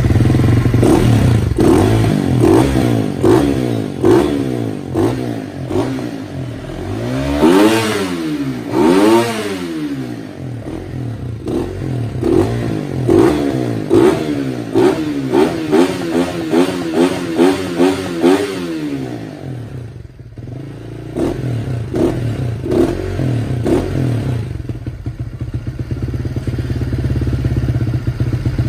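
Honda Winner 150i single-cylinder four-stroke engine, fitted with a 65 mm big-bore piston, running in the stand and being revved: two long revs about eight and nine seconds in, then a quick run of short throttle blips, settling to a steady idle about twenty seconds in.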